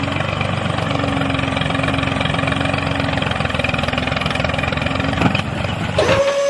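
A small motor running steadily with a rapid buzzing pulse. It stops about six seconds in, and a steady higher hum takes over.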